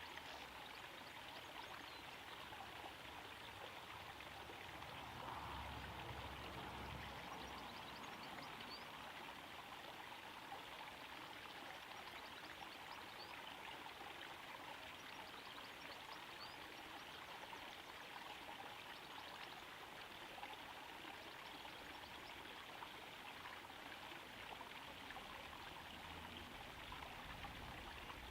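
Small garden-pond waterfall trickling and splashing steadily into the pond, a faint, even patter of falling water.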